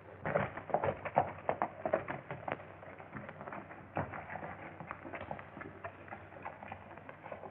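A horse's hooves clattering and shuffling on hard ground: a quick, uneven run of loud knocks at first, then lighter scattered ones, over the hiss of an early sound-film soundtrack.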